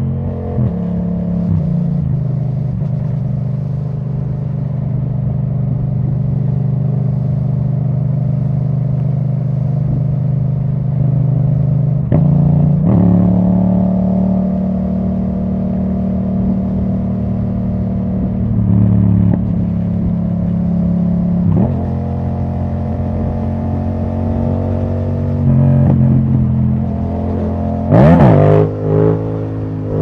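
2017 Yamaha MT-07's parallel-twin engine through an Akrapovic titanium exhaust with the dB killer removed, running under way at fairly steady revs. Its pitch steps up and down several times as the throttle or gear changes, with a quick sharp rise and fall in revs near the end.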